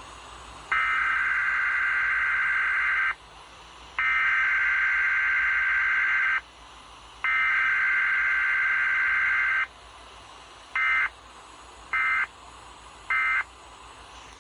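Weather alert radio receiver's alarm beeping: three long beeps of about two and a half seconds each, then three short beeps, over a steady hiss.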